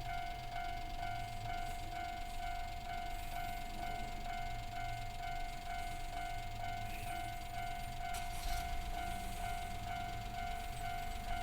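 Japanese level-crossing alarm in its standard electronic tone, ringing steadily at about two strikes a second. A low rumble rises about eight seconds in.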